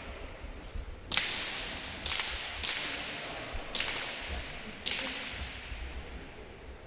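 A hand-pelota ball being struck and rebounding in a rally: about five sharp cracks, three of them loud, each trailing off in a long ringing echo in the empty frontón.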